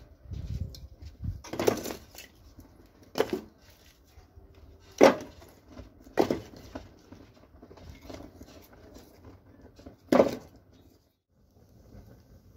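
Split firewood being set down piece by piece onto charcoal in a metal fire tray: five sharp wooden knocks spread through the stretch, with faint handling sounds between them.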